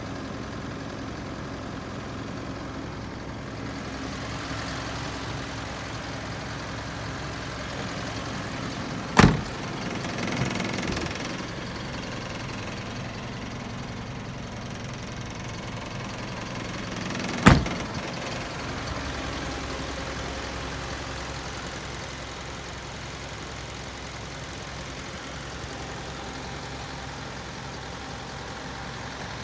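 Isuzu Elf truck's 4JJ1 four-cylinder diesel engine idling steadily, with two sharp thuds, the first about nine seconds in and the second about eight seconds later.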